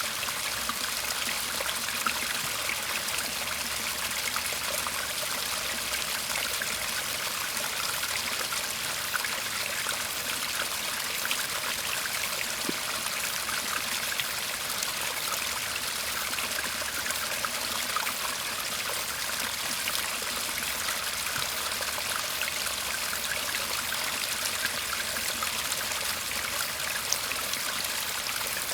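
Shallow Japanese-garden stream babbling steadily, a continuous trickle and rush of water with many tiny splashes.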